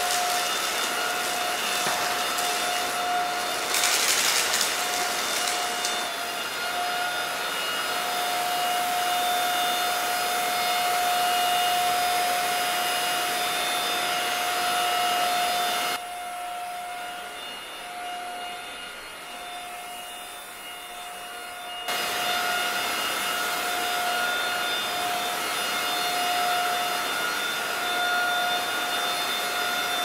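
Alfawise AR182BLDC cordless stick vacuum running on carpet with its motorised power brush: a steady high motor whine over the rush of air. There are brief crackles in the first few seconds as cereal is sucked up. About halfway through the sound drops to a quieter rush without the whine for several seconds, then the full running sound returns.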